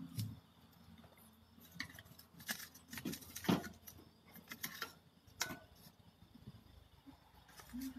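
Metal tongs knocking and scraping as burning firewood is pushed into the gaps of a homemade steel biomass gasifier stove: an irregular scatter of sharp knocks and clicks, most of them between about two and six seconds in.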